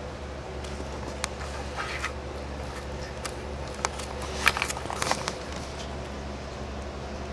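Wet clicks and smacks of a dog licking another dog's head, scattered and thickest about four to five seconds in, over a steady low hum.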